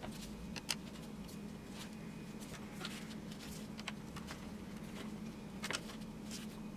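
Faint scattered clicks and light scrapes of a retaining clip being worked off a transmission cooler line fitting at the radiator, over a steady low hum.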